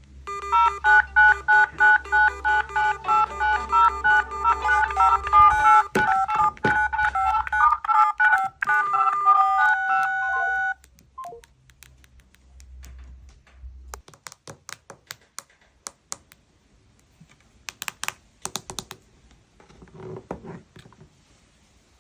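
Mobile phone ringtone: a quick, repeating electronic melody of high beeping notes that stops abruptly about ten seconds in. It is followed by scattered quieter clicks and a few short tones.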